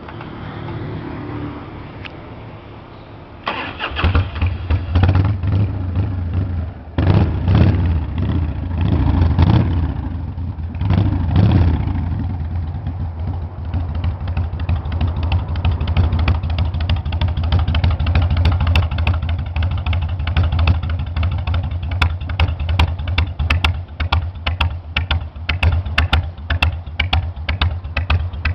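Harley-Davidson V-twin engine, loud: it fires up about three and a half seconds in and is revved in a few swells, then settles into a steady, lumpy, pulsing idle.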